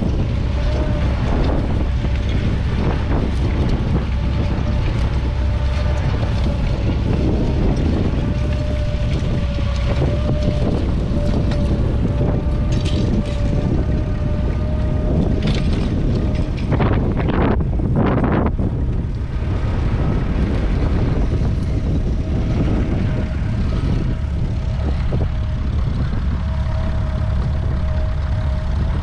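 McCormick-Deering W-4 tractor's four-cylinder petrol/TVO engine running steadily under load while pulling a plough, with a steady whine over a deep rumble and wind on the microphone. A few sharp knocks come about 17 seconds in.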